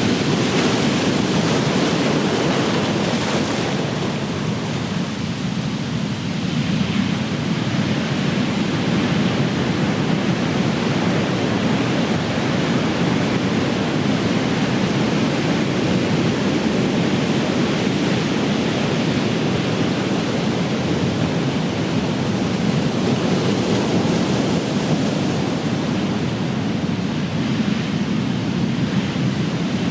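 Ocean surf: large waves breaking and washing ashore in a continuous rushing roar, with swells of hiss as waves crash in about a second in and again past the twenty-second mark.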